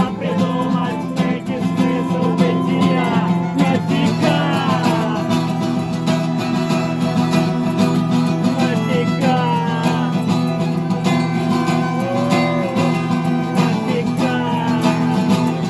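Music played on acoustic guitar: plucked and strummed strings over sustained low notes, with a wavering melody line on top.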